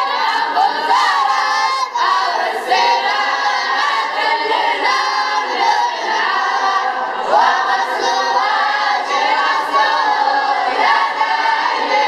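A group of boys chanting an Arabic didactic verse text together in unison, a loud and continuous collective recitation whose melody rises and falls line by line.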